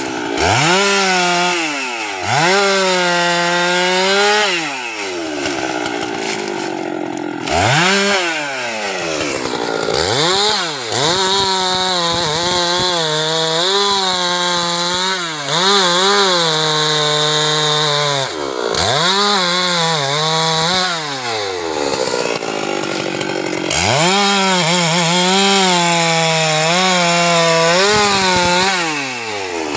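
Husqvarna 390XP two-stroke chainsaw cutting teak. It revs up and drops back repeatedly, with longer stretches held at high revs while cutting.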